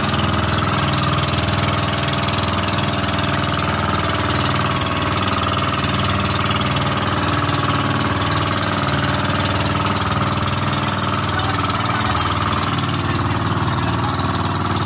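Motorized outrigger boat's engine running steadily under way, with water rushing along the hull.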